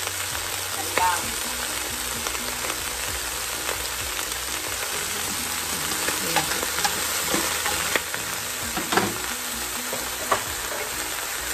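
Steady sizzling hiss from a pot of crabs with chillies and lemongrass on the stove, with a few light knocks as the ingredients are handled and shifted in the pot.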